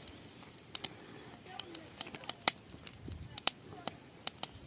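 Small campfire of dry grass and twigs crackling, with irregular sharp pops as it catches.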